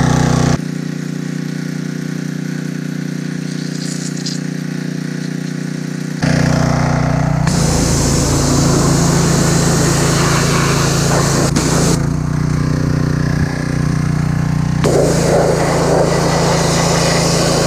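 Suzuki DR-Z400E single-cylinder four-stroke engine running steadily on its first start after a top-end rebuild with new piston rings and a redone head. It drops quieter about half a second in and comes back louder about six seconds in.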